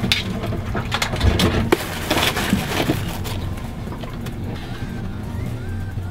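Boat engine running with a steady low hum, with clattering knocks in the first few seconds as crabs are handled over a wire crab pot.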